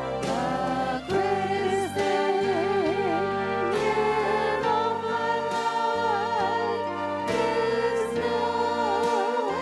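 Church praise team performing a worship song: singing with wide vibrato over sustained instrumental chords that change every second or two.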